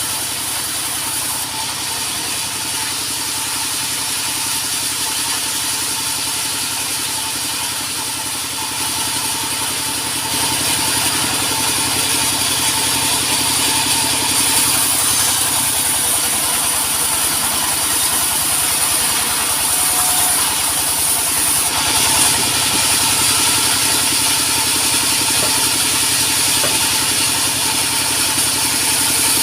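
A sawmill's engine running steadily, a little louder from about ten seconds in.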